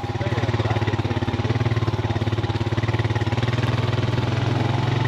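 A motor vehicle's engine idling steadily with a fast, even pulse.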